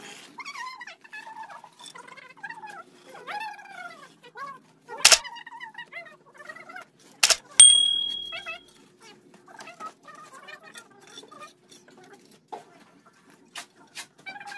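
Two sharp knocks of a steel mason's trowel against the concrete hollow blocks, about two seconds apart, the second leaving a short metallic ring. Throughout, a small animal keeps up high, bending whining cries.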